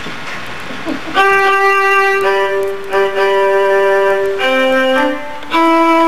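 A musical instrument plays a short introduction in held, steady notes, several sounding together, the line stepping down in pitch. It comes in about a second in, with a brief break near the end.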